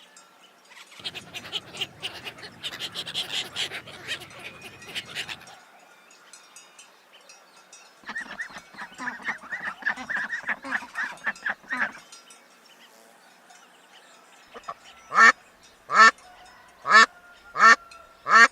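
Ducks quacking: first a dense flock chatter, then a fast run of quacks, then five loud separate quacks near the end.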